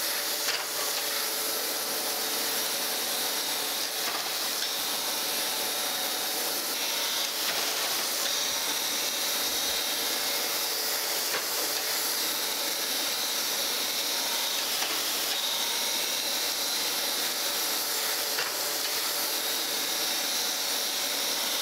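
Surface grinder wheel grinding across a straight edge: a steady hiss of the abrasive wheel cutting metal, with a faint hum of the machine under it. Each pass takes down a little more of a taper left from milling, to grind the surface flat.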